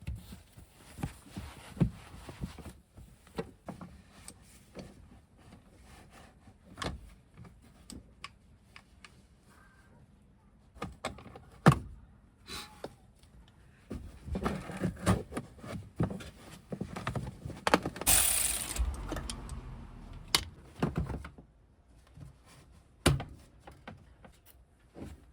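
Hand work on car parts: scattered knocks, clicks and metal clunks of tools and parts being handled, with a short rushing noise about three-quarters of the way through.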